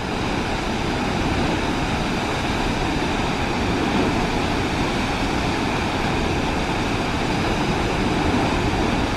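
Waterfall roar: a steady, unbroken rush of falling water.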